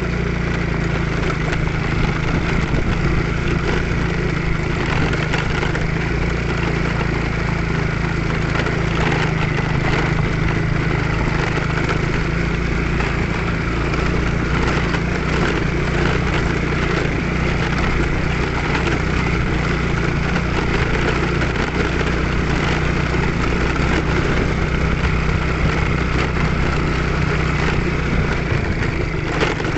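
Small motorcycle engine running steadily while under way, with scattered short clicks and knocks.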